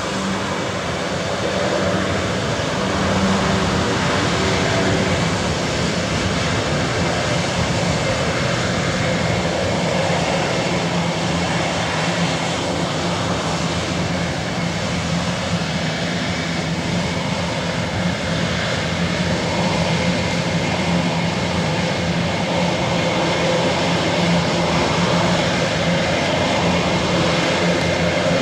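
Airbus A400M's four TP400-D6 turboprop engines running at low power as it taxis off the runway after landing: a steady drone with a constant low propeller hum.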